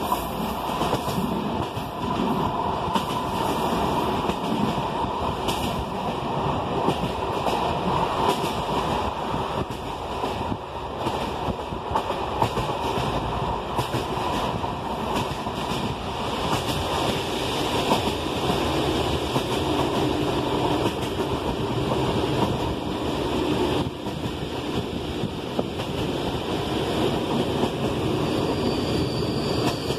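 Train running along the track, heard from inside a carriage: a steady running noise with faint, irregular wheel clicks.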